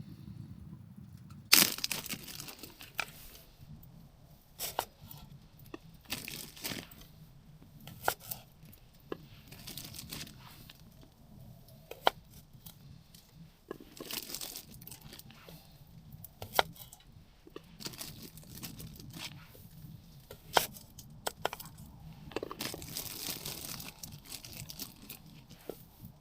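Irregular rustling, crinkling and tearing noises broken by sharp clicks and snaps, the loudest snap about a second and a half in and a longer rustle near the end.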